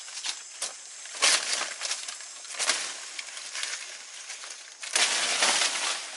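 Dry banana leaves rustling and crackling as they are pulled and handled, in several rough bursts, the longest and loudest near the end.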